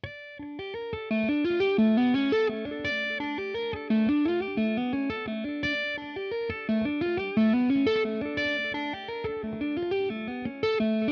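1984 Gibson ES-175 hollow-body electric guitar played clean through a Deadbeat Sound Delay Lay Lay analog delay pedal. It picks a quick, repeating arpeggio figure, with the notes ringing over one another.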